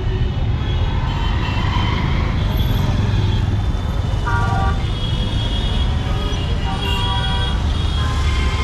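Busy street traffic: vehicle engines running with a steady low rumble, and horns honking in short toots, one clear one about four seconds in and several more near the end.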